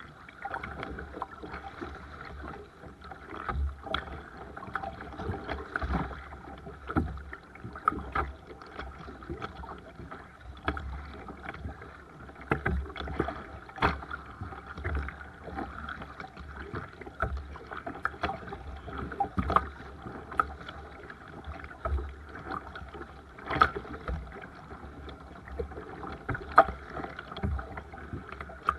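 Seabird Discovery sea kayak being paddled: water splashing and dripping off the paddle blades against the hull. Sharp splashes and knocks come irregularly, about every one to two seconds.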